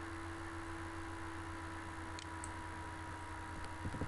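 Steady electrical hum and hiss from the recording setup, with a few faint clicks about two seconds in and near the end.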